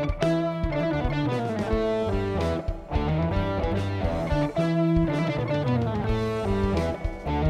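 A band playing live: electric guitar with bass, notes picked and strummed in a steady pattern.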